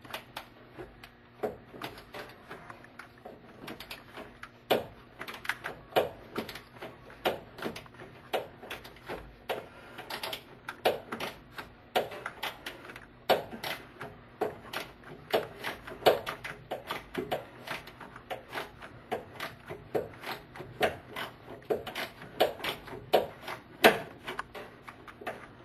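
Hand tools clicking and knocking on metal in irregular runs of several clicks a second, as fasteners are worked loose on the truck's underside.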